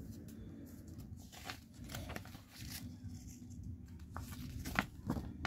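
Paper instruction manual being handled and its pages turned: faint rustling, with a few short, crisp rustles.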